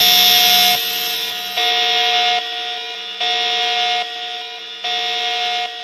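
Glitch alarm sound effect: an electronic alarm tone pulsing on and off, four loud pulses of under a second each, about one every 1.6 seconds, with a quieter tone carrying on in between.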